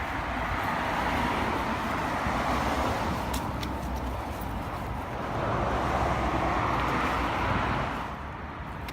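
Road traffic: cars passing close by with a steady rush of tyre and engine noise, which swells twice, the second time from about five to eight seconds in.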